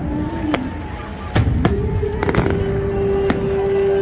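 Aerial fireworks shells bursting in several sharp bangs, heard over music that holds one long note.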